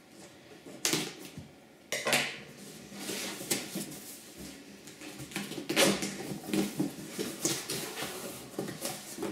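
Cardboard laptop shipping box being handled and opened: a tear strip pulled, the box stood on end and its top flaps pried open, with a string of cardboard scrapes, rips and knocks. The sharpest come about two seconds in and about six seconds in.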